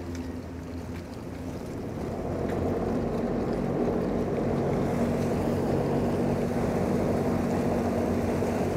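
Motor yacht's engines and bow and stern thrusters running steadily as the yacht is pushed sideways off the quay, growing louder about two seconds in and then holding.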